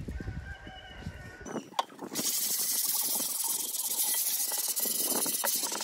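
A sponge scrubbing soapy dish soap over the rusted steel cooking surface of a Blackstone griddle, a steady scratchy hiss that starts about two seconds in.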